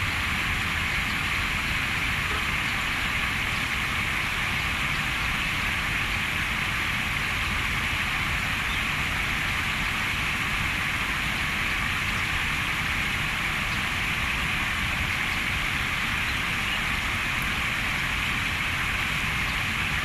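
Small stream bubbling and flowing, a steady rush of running water with no change throughout.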